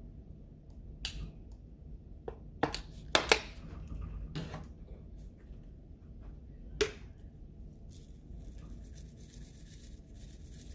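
Kitchen utensils knocking and clinking against dishes: about seven sharp taps spread over the first seven seconds, the loudest a quick pair about three seconds in. A soft, high scratching or scraping follows near the end.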